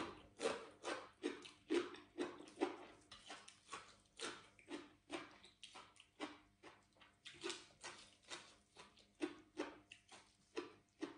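Close-up chewing of crisp food, a steady run of crunches about two to three a second.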